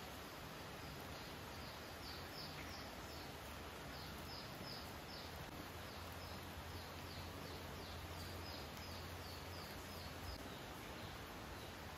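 Outdoor background hiss with a small animal's short, high chirps repeating at about two a second. A low hum joins for a few seconds past the middle.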